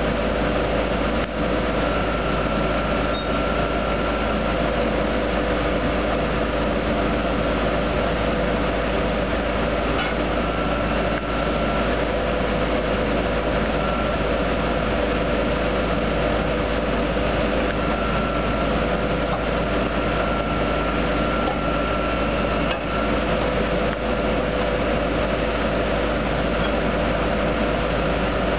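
Truck-mounted drill rig and its mud shaker system running together, a steady mechanical drone with a constant hum and a fainter high whine that comes and goes.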